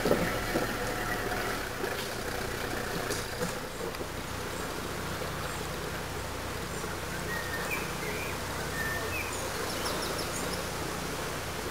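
Outdoor background noise over a steady low hum, with a few knocks right at the start and several short bird chirps about two-thirds of the way through.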